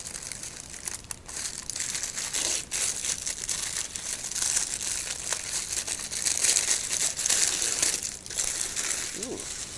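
Tissue paper being crinkled and rustled by hands as it is unwrapped from around a model train locomotive. The rustling is continuous and grows louder in the second half.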